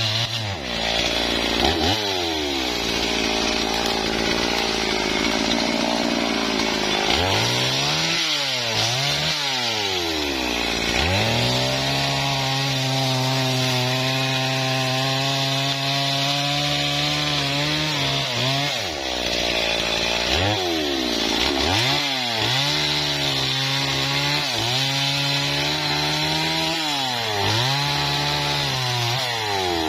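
Stihl chainsaw cutting through a mahogany log, its engine revving up and dropping back repeatedly. Mid-way the revs hold steady for several seconds, and near the end come a quick series of rev-ups and drops.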